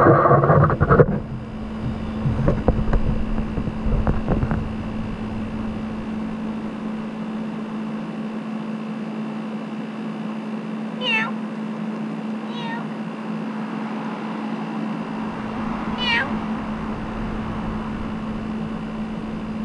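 A cat meowing briefly three times, short calls that fall in pitch, over a steady low hum. A short loud noise comes in the first second.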